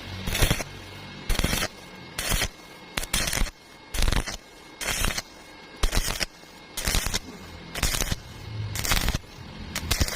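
Welding arc crackling in short bursts, about one a second, as the weld is laid in stitches up a vertical joint.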